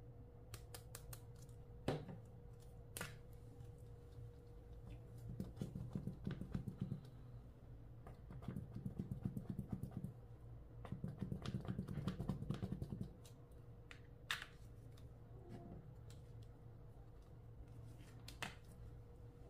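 Clear slime being mixed and squished: stretches of dense wet crackling and clicking a couple of seconds long, three times, with a few sharper single clicks between them.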